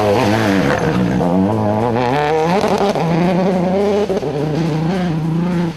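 Rally car engine at high revs: the pitch wavers and drops early on, climbs again about two seconds in, then holds fairly steady under full throttle.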